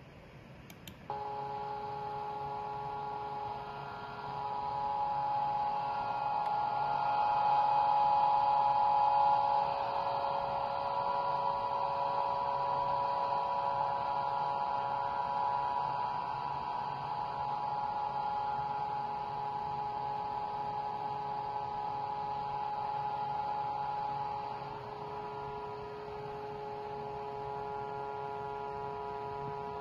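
Vibratory stress relief exciter motor running clamped to a welded steel part, which gives a steady hum of several tones as the part is shaken at resonance. The hum starts abruptly about a second in, swells in the middle and eases somewhat near the end.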